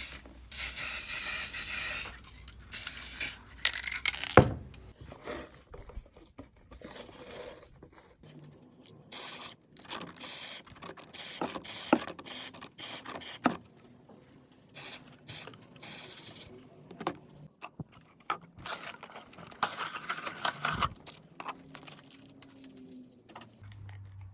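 Short bursts of spray hiss, followed by a string of brief hisses, clicks and knocks of objects being handled.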